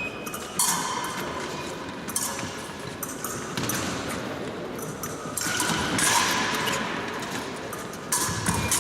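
Épée bout in progress: blades clinking and feet striking the piste, with sudden louder moments about half a second in and near the end.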